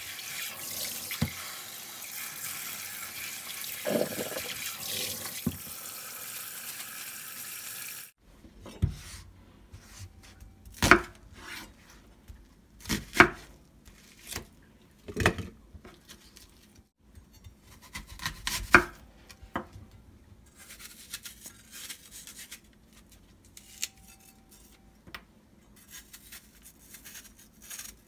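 Tap water running into a stainless-steel bowl as beef ribs are rinsed in a kitchen sink; the water stops abruptly about eight seconds in. Then a kitchen knife cuts through an onion onto a wooden cutting board: about five sharp knocks, followed by lighter clicks and scrapes as an apple is peeled.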